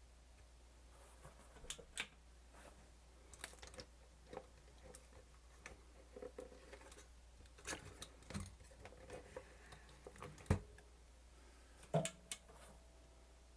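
Scattered small clicks and taps from handling a camcorder and its parts on a repair bench, with two sharper clacks about ten and a half and twelve seconds in, over a faint steady low hum.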